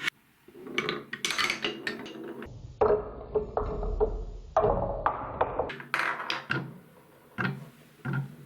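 Glass marbles rolling and clattering along a plastic marble-run track, with sharp clicks as they strike the track pieces and drop. Through the middle the sound turns duller, with a low rumble under the rolling.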